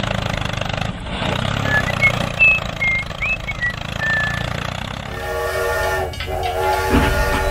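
A steam-train whistle, several steady tones sounding together, starts about five seconds in and breaks off briefly twice. Before it there is a low steady rumble with a few short high chirps.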